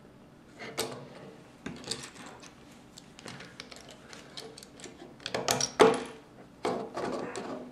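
Plastic Lego bricks clicking and clattering as they are handled and pressed onto a car model's plates, in a string of short clicks. The louder rattles come a little past halfway and again near the end.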